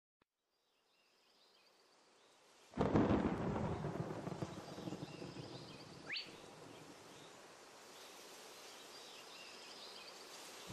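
Thunder: after a near-silent start, a sudden clap about three seconds in that rumbles and slowly dies away into a faint hiss, with a short rising whistle partway through.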